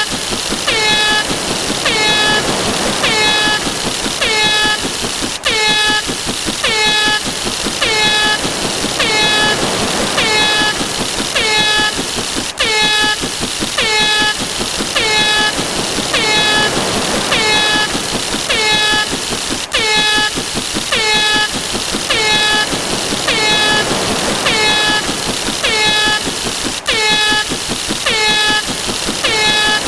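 A short, honking sound effect repeated rapidly, nearly two a second, each honk dropping slightly in pitch. A click with a brief break comes about every seven seconds.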